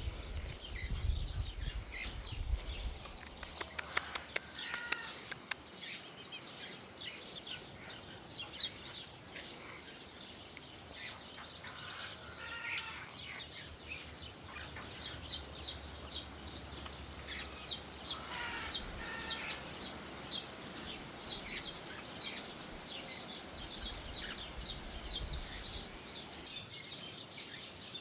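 A flock of birds chirping, with many short high chirps that grow busier in the second half and a few lower, harsher calls among them. A quick run of about seven sharp clicks comes a few seconds in.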